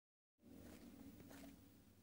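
Near silence: dead quiet for a moment, then faint room tone with a low hum.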